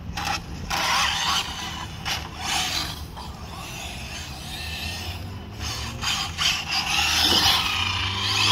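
Arrma Felony 6S RC car driven in bursts of throttle: its brushless electric motor and drivetrain whine in short surges over a steady low hum, with a rising whine near the end.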